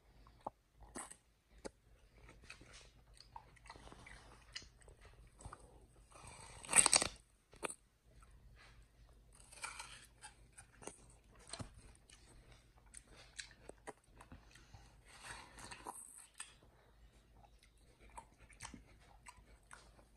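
Chimpanzee biting and chewing a mini watermelon, crunching into the rind and flesh in irregular bites. One loud crunch stands out about seven seconds in.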